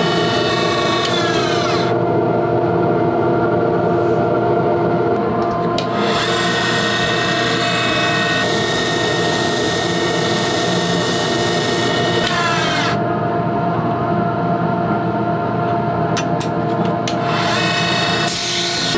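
Wood lathe running with a steady motor hum while a chisel cuts the spinning wooden pen barrel. Through the middle, an abrasive mesh pad sands the turning barrel with a brighter hiss.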